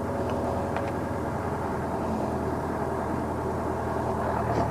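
Dockside crane's engine running steadily as it unloads: an even machine drone with a low, constant hum.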